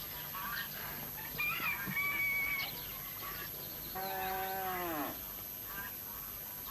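A cow lowing once for about a second, starting about four seconds in and dropping in pitch at the end. Short calls of farmyard fowl come before it.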